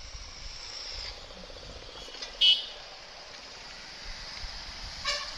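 Motorcycle riding in street traffic, with engine and road noise throughout. A short, loud beep like a vehicle horn sounds about two and a half seconds in, and another shorter beep comes just before the end.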